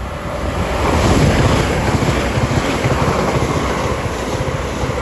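Two coupled Class 387 electric multiple units passing through the station at speed. It is a loud, steady rush of wheel and air noise that builds over the first second, with the train's slipstream buffeting the microphone.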